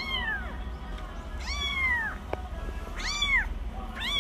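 A young kitten mewing, high-pitched: four calls about a second and a half apart, each rising and then falling in pitch.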